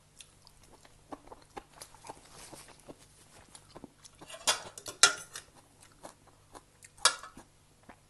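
A person chewing a spicy seafood and glass-noodle salad with the mouth open: a run of soft wet smacks and clicks, with louder chewing bursts about four and a half, five and seven seconds in.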